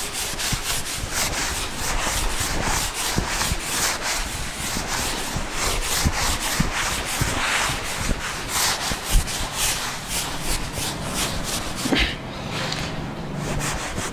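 Blackboard duster rubbed back and forth over a chalkboard, wiping off chalk writing in a quick series of scrubbing strokes, with one sharper knock about nine seconds in.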